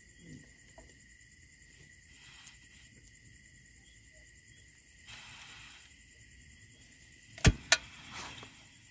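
Two sharp clicks of a portable butane camping stove's piezo igniter about seven and a half seconds in, with the burner catching right after; a short hiss comes a couple of seconds earlier. Crickets chirp steadily throughout.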